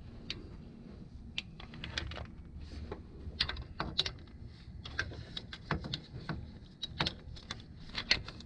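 Irregular light metallic clicks and clinks of bolts and hand tools being handled, over a low steady hum.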